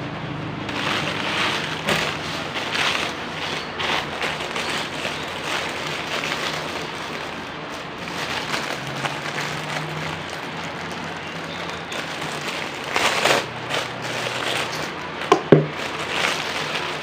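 Plastic packaging crinkling and rustling as it is handled, in uneven crackly bursts, with two sharp clicks near the end.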